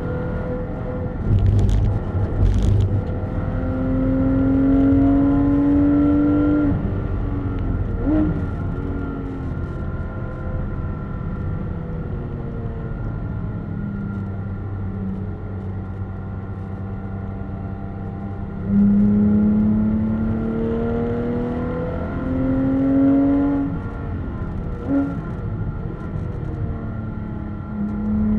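Porsche 911 GT3 RS flat-six engine heard from inside the cabin on track, pulling hard with its pitch rising through the revs, dropping abruptly on upshifts, and a few short throttle blips. There are two sharp knocks about two seconds in.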